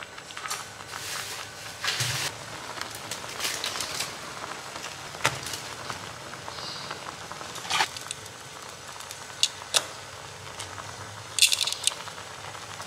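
Instant-noodle broth boiling in a frying pan, bubbling and crackling steadily, with a few sharper pops or clicks scattered through it.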